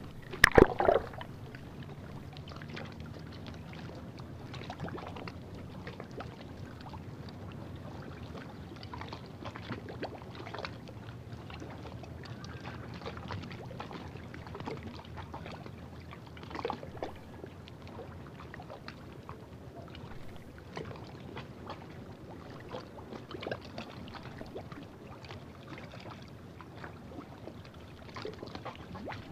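Sea kayak being paddled, picked up by a camera at and below the waterline: steady water noise with scattered splashes and swirls from the paddle strokes. There is a loud thump about half a second in.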